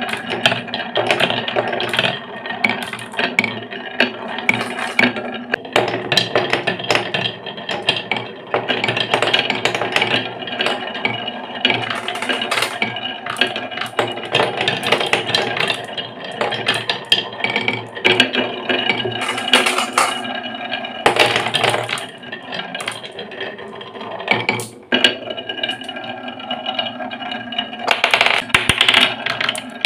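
Glass marbles rolling along grooved wooden marble-run tracks and a zigzag wave slope. A continuous rolling rumble is broken by many sharp clicks and clacks as the marbles strike the track walls and knock into one another in a wooden catch tray.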